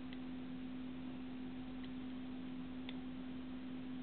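Steady low hum over a hiss, with three faint, separate clicks.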